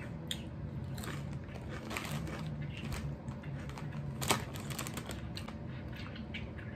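Close-up crunching of Lay's India's Magic Masala potato chips being chewed: a steady run of short, crisp crackles, with one sharper crack about four seconds in.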